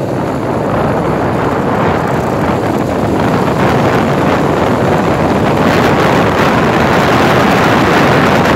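Rushing wind noise on the microphone of a vehicle moving along a road, with road noise under it, growing slightly louder toward the end.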